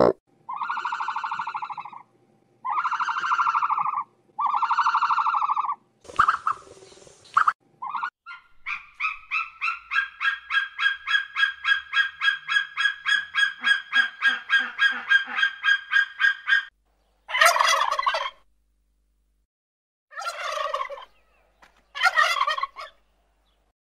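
A series of animal calls: three drawn-out pitched calls in the first five seconds, then a long run of high, rapidly repeated bird calls at about four a second. Near the end, male turkeys gobble three times in short rough bursts.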